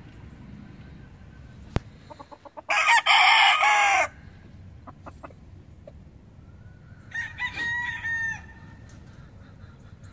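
Boston Roundhead gamecock crowing loudly once, a crow of about a second and a half starting near the third second. A second, fainter rooster crow follows about seven seconds in.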